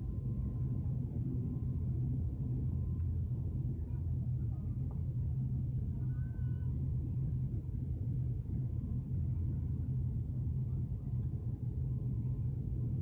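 Steady low drone of a high-wing turboprop airliner's engines, heard from inside the cabin as the aircraft taxis slowly.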